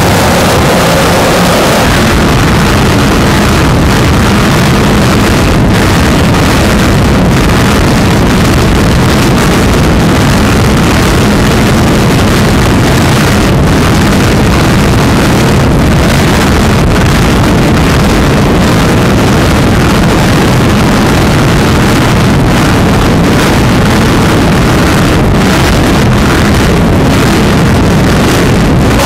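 Offshore racing powerboat engines running at high speed, mixed with heavy wind noise on the microphone and rushing water; loud and steady.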